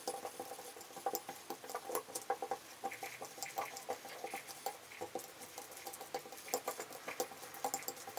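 Fork mashing bananas in a bowl: quick, irregular clicks and taps of the fork against the bowl.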